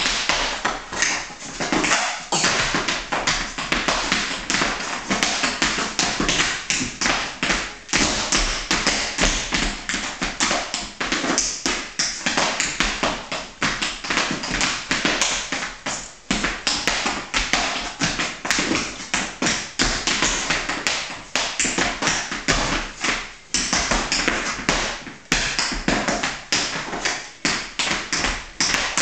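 A child tap dancing in hard-soled shoes on a woven straw mat: quick, irregular runs of taps and stamps, several a second, with a few short breaks.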